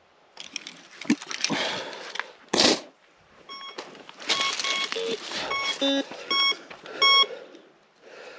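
A metal detector beeps again and again in short tones through the second half, false signals from its dying battery. Before the beeping there is rustling handling noise and one sharp knock.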